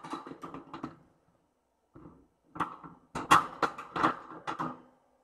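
A kitten eating wet food from a stainless steel bowl: quick, wet chewing and lapping clicks in two bursts. The second burst starts about two and a half seconds in and is the louder.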